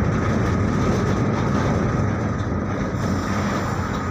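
A loud, steady rumbling rush of noise from an anime sound effect, with a faint steady tone running through it.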